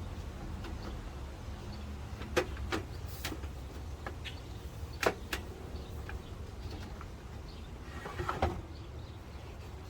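A desktop computer case being handled and turned over: a few sharp knocks and clicks, in ones and pairs, over a steady low hum.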